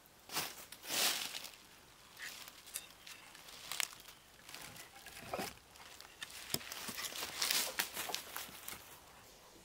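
Footsteps crunching through dry fallen leaves and split firewood being set onto a woodpile, with a few sharp knocks of wood on wood.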